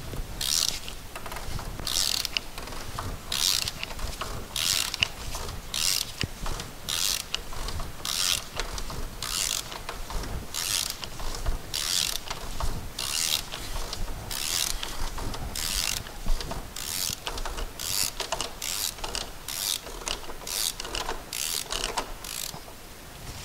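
Ratchet wrench with a 27 mm socket unscrewing a cartridge oil-filter cap, its pawl clicking in short rasps on each return swing of the handle, roughly one every two-thirds of a second.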